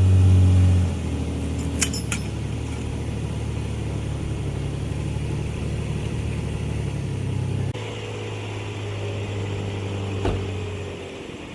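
Engine of the vehicle pulling the log out, running steadily under load. Its level drops about a second in and its pitch shifts near the end. A couple of sharp metallic clicks come about two seconds in, and a single knock comes near the end.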